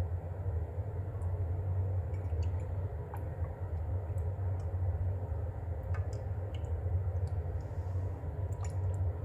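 Thick palm sugar syrup poured and dripping into a glass, heard as faint scattered small drips and clicks over a steady low hum.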